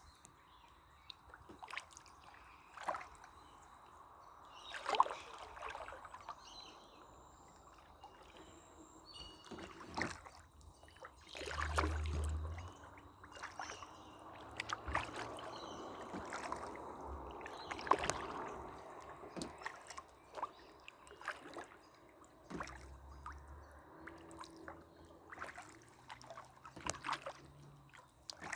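Canoe paddling: the paddle dips and pulls through the water with splashes, sloshes and drips, and now and then a sharp knock. A low thump comes twice, about midway and again later.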